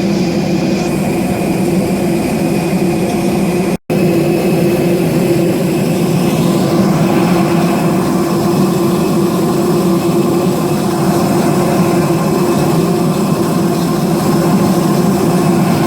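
Steady drone of airliner jet engines on the apron, an even hum with a thin held whine over it. The sound cuts out for a split second about four seconds in.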